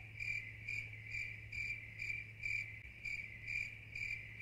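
Cricket chirping, short high chirps about two a second: a sound effect dropped over an awkward pause, the stock 'crickets' gag for dead air. A faint steady hum lies underneath.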